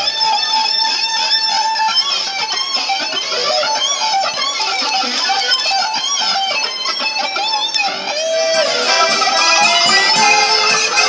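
Electric guitar playing a fast, bending lead melody. About eight seconds in it switches to folk band music led by an accordion.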